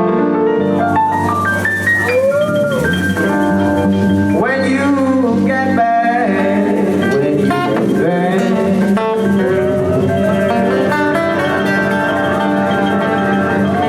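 Live band playing: a lead line with notes bending up and down in pitch over a steady accompaniment of guitar, keyboard and percussion.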